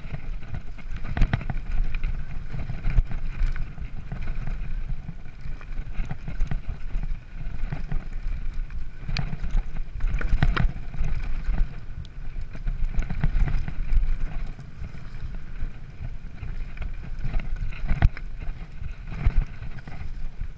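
Mountain bike riding fast down a rough dirt singletrack: wind buffeting the microphone over the rumble of tyres on dirt and stones, with frequent sharp knocks and rattles as the bike hits bumps.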